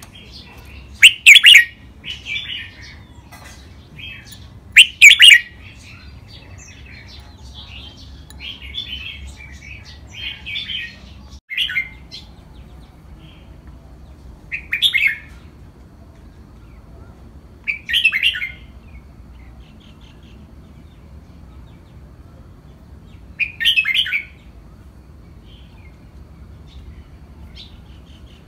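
Red-whiskered bulbul song: short, loud warbled phrases repeated every few seconds, with longer gaps towards the end.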